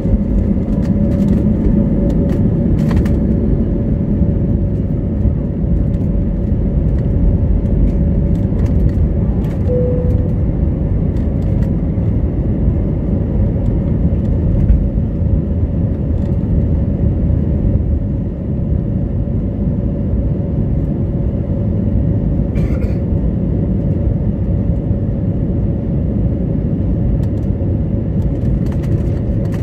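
Airbus A320neo's Pratt & Whitney PW1100G geared turbofan engines at takeoff power, heard inside the cabin as the plane rolls, lifts off and climbs. A loud, steady rumble runs with a steady hum over it, and there are a few faint clicks.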